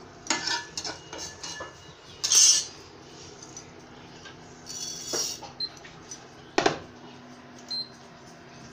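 Steel spatula scraping and clinking against a nonstick pan and a steel bowl as dry-roasted panch phoron seeds are scraped out. There are two longer scrapes and a sharp clink near the two-thirds mark.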